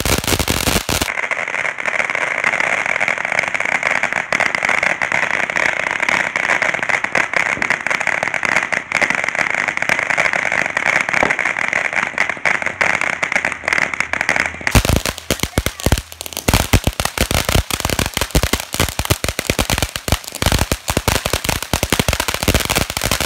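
Heavy Metal firework fountain burning on the ground. A brief spell of crackling gives way to a steady hiss of spraying sparks for about fourteen seconds. It then switches to rapid, loud crackling pops that carry on to the end.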